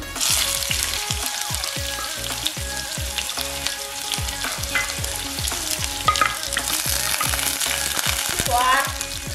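Boiled buffalo intestine pieces frying in hot oil, a steady sizzle that starts suddenly. A low, regular thudding beat runs underneath.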